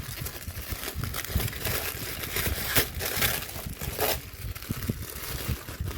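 Plastic blind-bag wrapper being handled and opened by hand, crinkling and crackling with many small sharp crackles.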